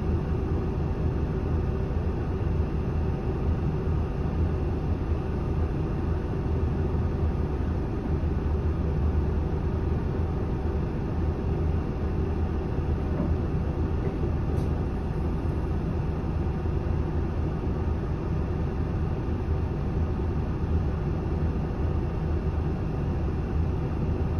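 Steady idle of a 2007 Isuzu Erga city bus's diesel engine, heard from inside the passenger cabin while the bus waits at a signal: an even low hum that does not change.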